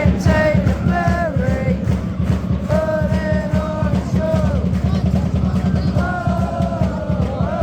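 Background music: a song with a single sung vocal line, long held notes, over a dense steady beat.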